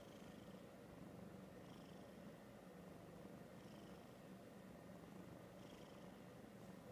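Ragdoll cat purring faintly and steadily, the purr swelling softly about every two seconds with each breath.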